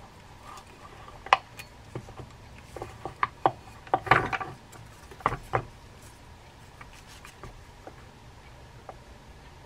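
Small clicks, taps and rubbing of a Penn Fierce III spinning reel being handled with gloved fingers as the line is hooked into the spool's line clip. The clicks are scattered through the first six seconds, busiest around four seconds in, then only faint ticks remain.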